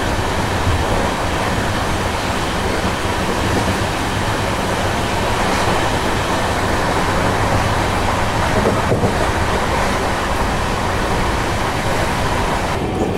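Sleeper coach of an Indian Railways express train running at speed, heard from its open door: a steady rumble of the wheels on the track.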